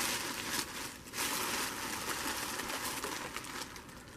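Rustling and crinkling of packaging as items are handled and pulled from a backpack, dipping briefly about a second in and fading near the end.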